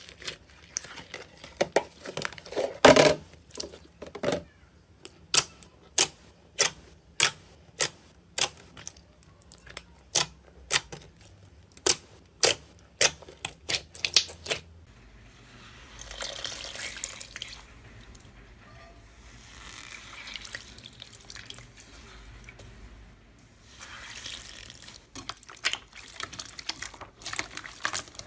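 Slime being handled: a string of sharp sticky pops and clicks, about one or two a second, then, about halfway through, softer wet squishing that comes and goes in swells.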